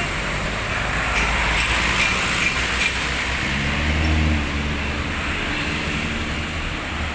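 Large tour bus's diesel engine running as the bus drives past, its note swelling and then easing off about four seconds in. A light, regular ticking sounds through the first few seconds.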